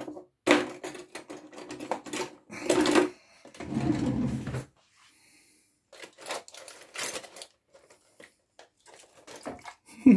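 Aluminium foil crinkling and rustling in three short bursts as a foil parcel is pulled open and handled, then a few light clicks and a sharp knock near the end as the meat is moved into a dish.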